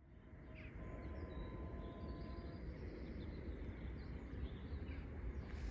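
Countryside ambience fading in: scattered short bird chirps over a steady low rumble, with a faint thin tone from about one to two and a half seconds in.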